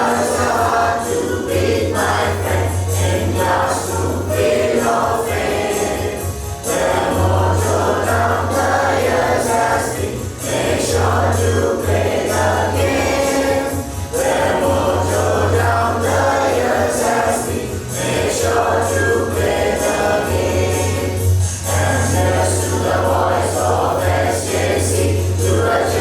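A large group of students singing an anthem together in chorus, in phrases of about four seconds, over steady held low notes from an accompanying instrument.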